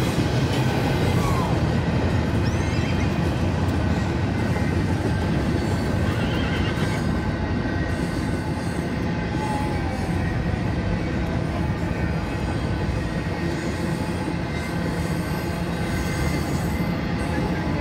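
Long freight train of double-stacked container cars passing, a steady low rumble throughout, with a few whinnies from mares and foals on top.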